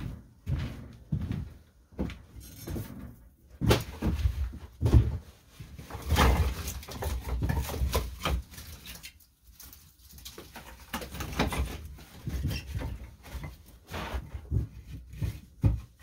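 Split firewood being stacked by hand, pieces of wood knocking and clunking against each other as they are set onto the pile, in irregular bursts of thuds.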